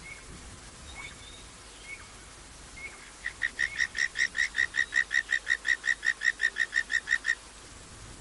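An animal calling: a few single short notes, then a fast, even run of about twenty whistled notes, some five a second, that swells in loudness and then stops suddenly.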